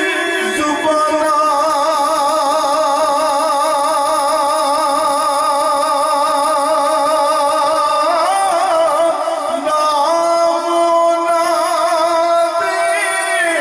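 Devotional Sufi singing: a man's voice, amplified through a microphone, holds long drawn-out notes with an even wavering vibrato. It steps to a new pitch about eight seconds in and again about ten seconds in.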